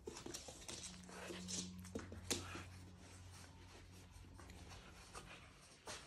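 French bulldog tugging at a fabric leash: scratchy rustling and scuffing of the strap and paws on a rug, with a few sharp clicks, the loudest about two seconds in. A faint low hum starts about a second in and fades near the end.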